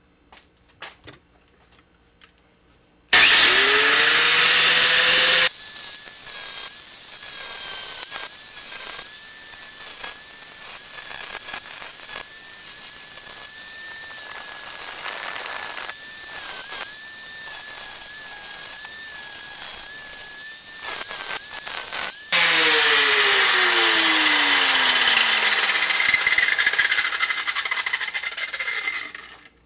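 Handheld angle grinder spinning up about three seconds in and grinding the ribs off a steel rebar bar, its whine dipping in pitch now and then as it is pressed into the steel. Near the end it winds down with falling pitch and stops.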